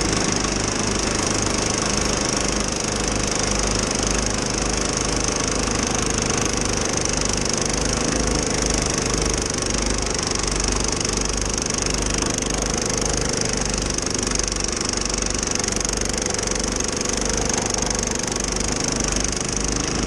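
Husqvarna ST227P two-stage snow blower running steadily under load, its single-cylinder engine working as the auger and impeller take in and throw snow, over a constant high hiss.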